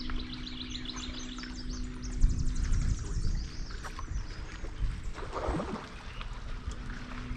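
Outdoor ambience on a fishing boat: a steady low hum with a low rumble of wind and water. A bird trills rapidly in the first few seconds, and a short swooping sound comes a little past halfway.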